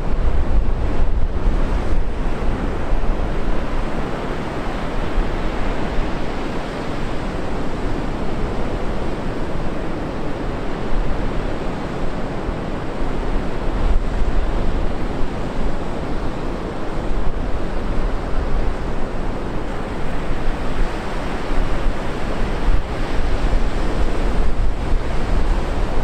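Atlantic surf breaking and washing up a sandy beach: a continuous rush of waves that swells and eases.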